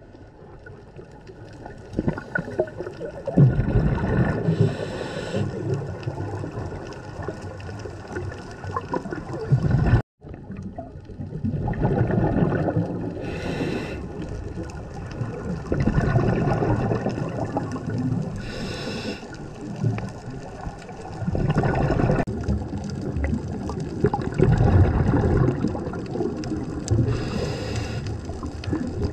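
Scuba diver breathing through a regulator underwater: drawn-out bubbling exhalations alternating with short hissing inhalations, a breath every several seconds. The sound cuts out for an instant about ten seconds in.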